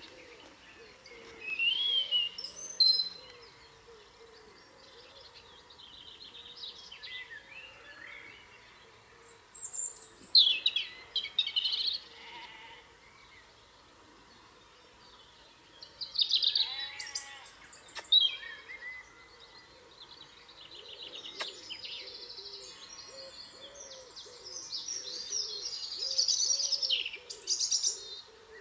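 Songbirds singing in short, bright phrases every few seconds, with a fainter low wavering call repeating underneath.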